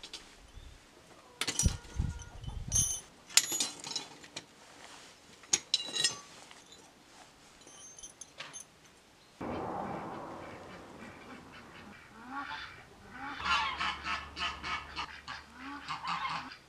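Thin iron wires and hand tools clinking and knocking on concrete as they are handled, in sharp separate clicks. A little past halfway a sudden rushing noise starts and fades, then a run of short, repeated animal calls takes over near the end.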